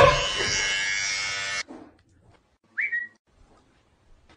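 A loud, steady electronic prank sound with many overtones played from a smartphone speaker held against a person's head, cutting off abruptly about a second and a half in. About a second later comes a short rising whistle-like chirp.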